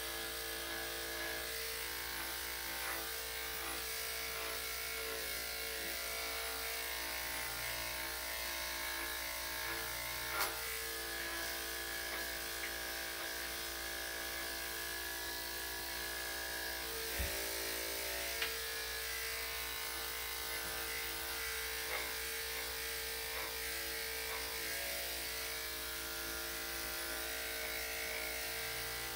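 Corded electric dog grooming clippers running with a steady buzz while shaving a small dog's coat, with a few brief clicks.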